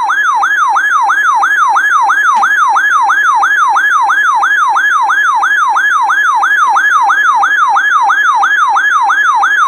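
Weather radio's electronic alert siren: a loud yelping tone sweeping down and back up about three times a second, starting and cutting off abruptly, sounded as a warning alert comes in.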